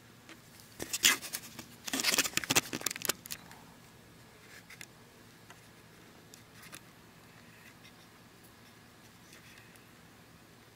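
Handling noise on the camera and its mount: a short run of clicks and scrapes about a second in, then a louder, denser cluster of clicks and rubbing for about a second and a half, with a few faint ticks afterwards over low hiss.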